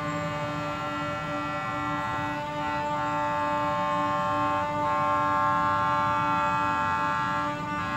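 Alsthom diesel locomotive's horn sounding one long, steady blast as the train approaches, over a low rumble from the train.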